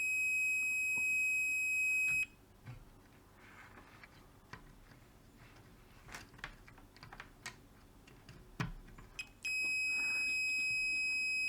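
Digital multimeter on diode check beeping continuously with a steady high tone while its probes sit across a Zener diode, the sign that the diode is shorted. The beep stops after about two seconds, a few faint clicks and taps of the probes follow, and the beep comes back on near the end.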